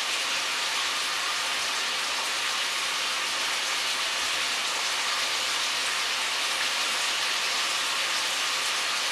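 Daikon radish, cucumber and minced beef sizzling steadily in a hot wok.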